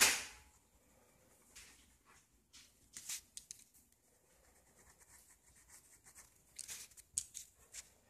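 Pen scratching on lined notebook paper in short shading strokes, coming in clusters of quick scratches with pauses between. A louder, sharp sound comes right at the start.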